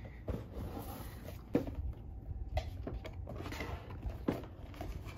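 A LEGO set's cardboard box and packaging being handled: a few light knocks and taps with soft rustling between them.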